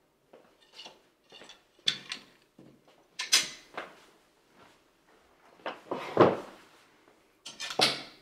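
Household handling sounds at a wooden dining table: light footsteps, then a plate set down with a clatter about three seconds in. Around six seconds a chair is pulled out and sat in, and there is a sharp clatter near the end.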